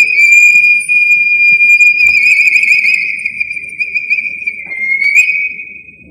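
Pan flute playing one long high note with a slight wavering vibrato; about five seconds in the pitch dips and slides back up, and the note then fades out.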